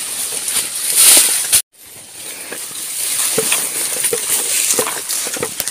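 Footsteps pushing through tall grass and ferns: leaves and stems brushing and crackling, with scattered soft steps, over a steady high hiss. The sound cuts out completely for a split second about a second and a half in.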